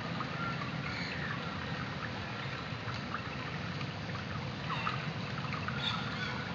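Gentle, steady flow of creek water, with many short high chirps and ticks scattered through it.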